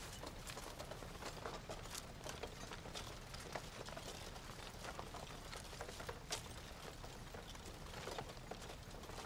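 Soft, irregular footsteps and rustling of several people moving on foot over rough ground, with a low rumble underneath.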